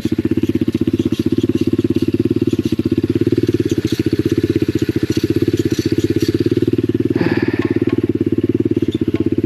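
Lifan 125 single-cylinder pit bike engine idling steadily with even firing pulses, running on though its kill switch has stopped working. A brief higher-pitched sound cuts in about seven seconds in.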